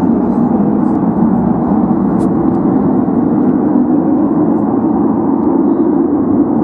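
Engines of Su-35S fighter jets running, heard from the ground as a steady, loud drone that holds its level throughout.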